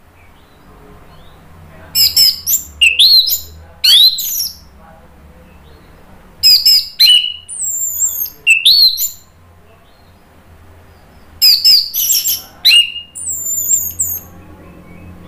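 Orange-headed thrush (anis merah) singing loudly in three bursts a few seconds apart. Each burst is a quick run of sharp, very high notes and rising whistles.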